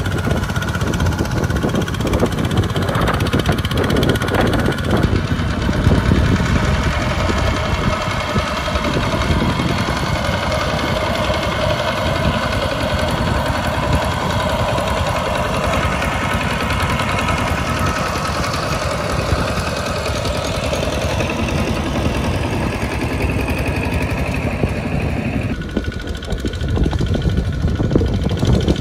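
Single-cylinder diesel engines of two-wheel walking tractors running hard as they drag loaded rice trailers through deep mud, a steady chugging. The sound changes character about five seconds in and again near the end.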